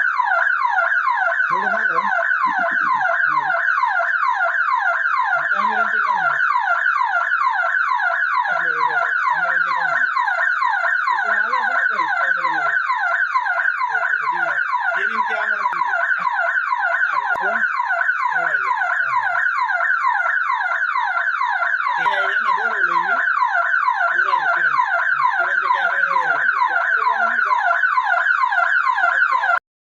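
Shop security siren sounding continuously, a loud electronic tone sweeping down in a fast repeat several times a second, cutting off abruptly near the end. It is a burglar alarm set off by the shutter being forced open.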